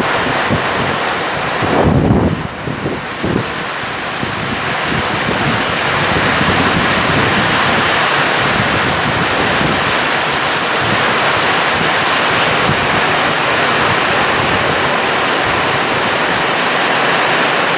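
Heavy rain pouring down in a steady dense hiss, with wind buffeting the microphone. A brief low rush stands out about two seconds in.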